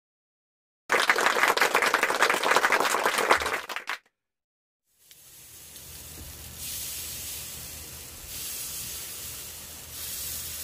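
Batter sizzling as it is poured into the hot wells of an electric khanom krok pan, a steady hiss that swells in three steps, over a low hum. It is preceded by a loud burst of dense crackling, clapping-like noise lasting about three seconds.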